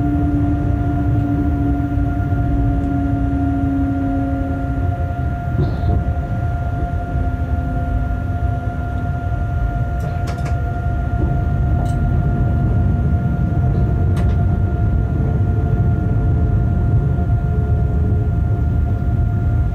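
Freight locomotive on the move, heard from its cab: a steady low rumble with a constant electric whine and hums that slowly shift in pitch. A few sharp clicks come about ten, twelve and fourteen seconds in.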